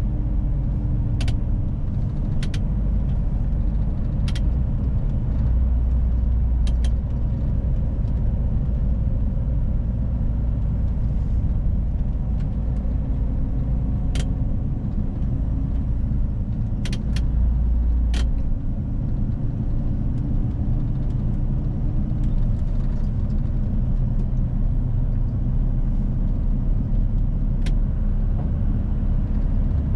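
Mercedes-Benz Arocs truck's straight-six diesel running under way, a steady low drone whose pitch shifts slowly, heavier for a stretch in the first half. A few sharp clicks and knocks are scattered through it.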